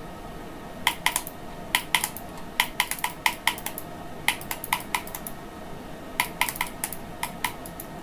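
Computer keyboard being typed on in several short bursts of sharp keystrokes, with pauses between the bursts.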